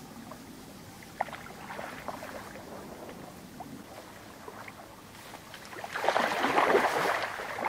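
Spawning common carp splashing in shallow water among reeds: faint small splashes and ticks at first, then a burst of loud splashing and thrashing about six seconds in that lasts a second or two.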